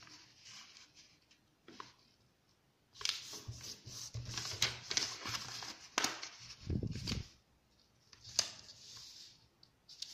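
Square origami paper being folded and creased by hand on a tabletop: irregular rustling and sliding as fingers press and run along the folds, coming in bursts, with a low thud about seven seconds in.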